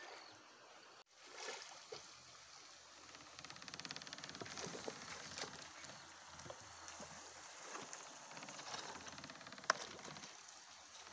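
Faint running stream water, with scattered splashes and clicks.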